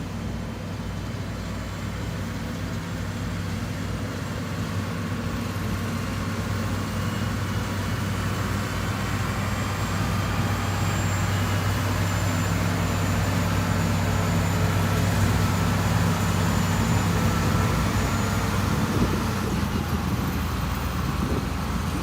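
Heavy construction machine's diesel engine running steadily with a low hum, growing gradually louder over most of the stretch.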